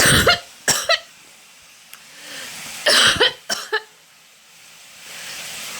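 A person coughing in two bouts, one at the start and one about three seconds in, each a harsh cough followed by a couple of smaller ones.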